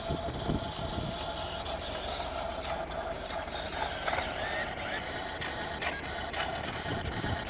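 Radio-controlled Mercedes-Benz Arocs model dump truck driving up the ramp onto a low-loader trailer: a steady whine from its electric drive, with scattered clicks.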